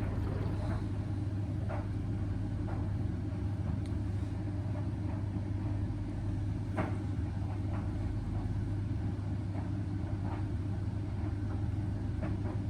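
Indesit washing machine running its hot main wash on the baby cycle, drum turning the load: a steady low hum with faint, irregular soft swishes.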